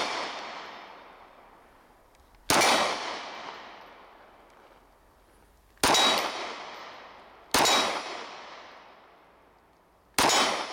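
Mossberg MC2c 9mm pistol fired four times in slow aimed fire, the shots two to three seconds apart, each report followed by a long echo that fades off the surrounding rock.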